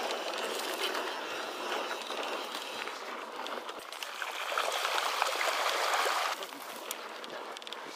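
Mountain bike tyres rolling over a dirt and gravel trail: a steady hiss with small scattered crunches and clicks, dropping a little quieter about six seconds in.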